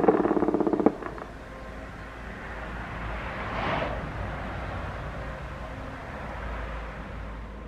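Electronic siren sounding a rapidly pulsing, harmonic-rich tone that cuts off abruptly about a second in. Low outdoor rumble follows, with a brief swell of noise about halfway through.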